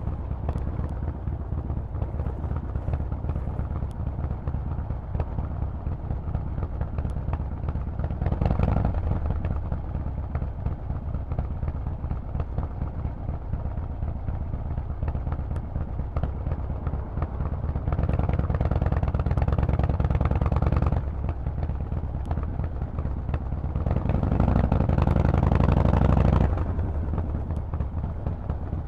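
Harley-Davidson Forty-Eight's air-cooled 1200 cc V-twin running through a Vance & Hines exhaust while riding. The exhaust gets louder three times as the throttle is opened: about eight seconds in, for a few seconds from about eighteen seconds in (cutting off suddenly), and again around twenty-four seconds in.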